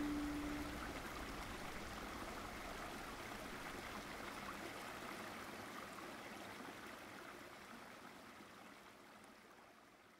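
A held note of the closing music ends about a second in, leaving a steady rushing background noise that slowly fades out.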